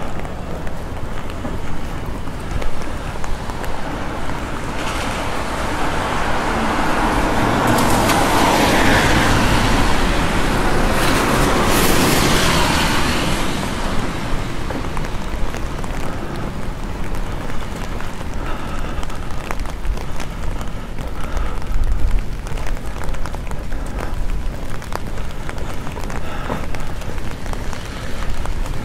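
Street traffic noise with a steady low rumble. A vehicle passes close by, swelling up about a fifth of the way in, loudest near the middle third, then fading over several seconds.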